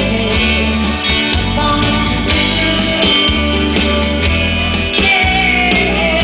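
Live band music from a stage performance: guitar and a strong bass line over a steady beat, with a singing voice.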